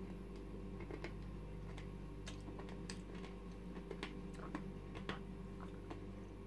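Someone chewing crunchy caramel M&M's: faint, irregular crunches and clicks.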